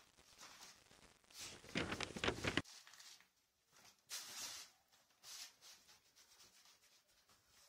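Faint scraping and rustling of damp sand being scooped with a plastic scoop and tipped into a plastic bag, in a cluster of short bursts about two seconds in and a couple of fainter ones around four to five seconds.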